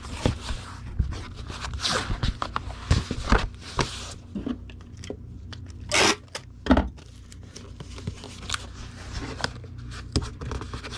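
Cardboard comic-book mailer being handled and taped: irregular rustling and scraping with short tearing sounds, the loudest two about six and seven seconds in.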